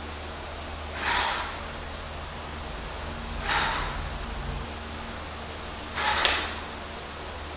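A person breathing, three audible breaths about two and a half seconds apart, over a steady low hum.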